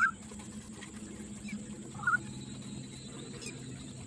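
Two short bird chirps about two seconds apart, over a steady low hum.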